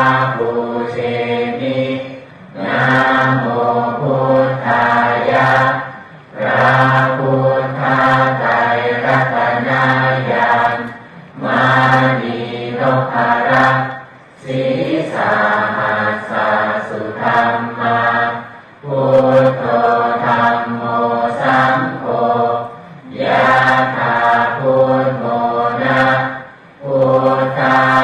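Thai Buddhist chanting in Pali, recited on a steady low pitch in phrases of a few seconds with short breath pauses between them.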